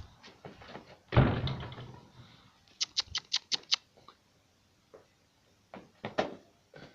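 A size 5 football kicked with a rabona: a heavy thud with a short ring about a second in, then a quick even run of six sharp taps.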